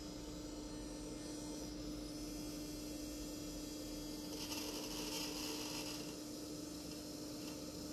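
Electronic throttle body test bench giving off a steady electrical hum, with a brief higher, hissing buzz from about four and a half to six seconds in.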